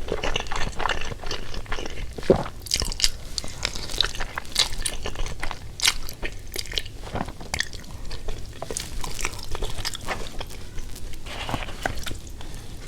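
A person biting and chewing crunchy food: a run of short, crisp crunches with chewing between them.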